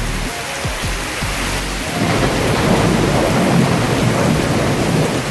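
Heavy rain hissing steadily, with a rolling rumble of thunder that swells in about two seconds in and keeps going.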